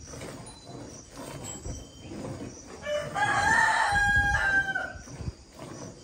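A rooster crowing once: a single call of about two seconds starting around three seconds in, rising and then held. Underneath, cow milking by hand sends regular squirts of milk into a steel bucket.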